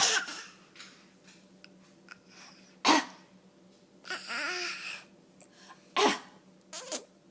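Playful motorboat noises made with the mouth: three short, sharp spluttering raspberries about three seconds apart, with a longer breathy splutter carrying a brief rising-and-falling voice between the second and third.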